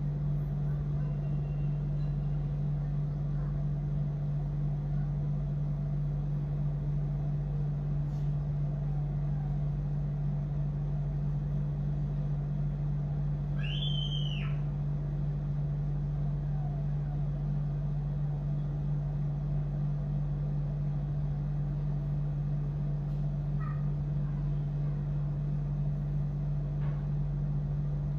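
A steady low hum, with a cat meowing once, clearly, about halfway through.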